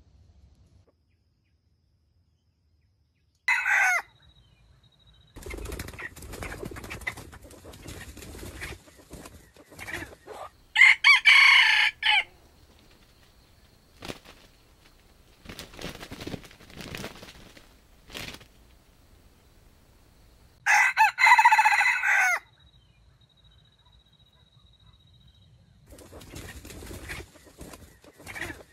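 Red junglefowl rooster crowing: a short crow, then two loud full crows roughly ten seconds apart. Between the crows come rustling and wing-flapping in dry leaves.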